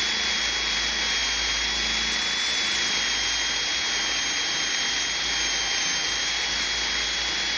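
Power sander running steadily with 400-grit paper, sanding a drip mark out of fresh clear coat down toward the paint, with a steady high whine over the sanding noise.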